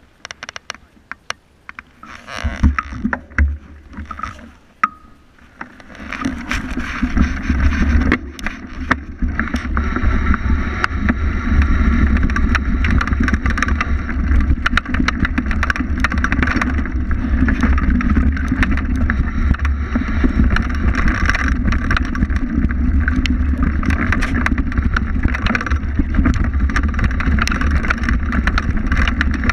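Fat bike descending a dirt and rock trail: a steady rumble of wind on the camera microphone and tyre noise, with frequent clicks and knocks from the bike rattling over the ground. The first few seconds are quieter, with scattered clicks, before the rumble builds about six seconds in.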